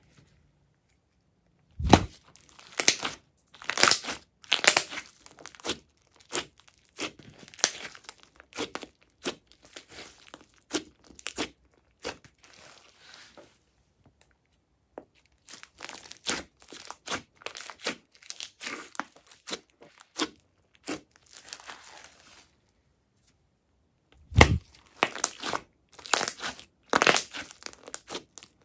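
Glossy slime being stretched, folded and pressed by hand, giving irregular sticky crackles and pops with short quiet pauses. Two louder thuds come about two seconds in and again near the end.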